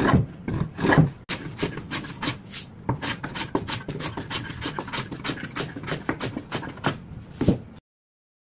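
Hand plane shaving a camphor-wood board: two long, loud strokes, then a quick run of short rasping strokes, several a second. The sound cuts off abruptly near the end.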